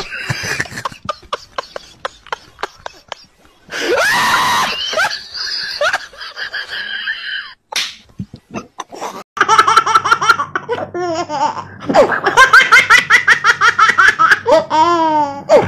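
Scattered clicks and short sounds, then someone laughing hard in quick repeated bursts that grow louder over the last few seconds.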